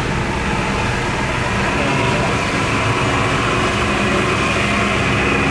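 Inboard engine of a loaded wooden cargo boat running steadily under way, its pitched hum growing a little louder as the boat passes close.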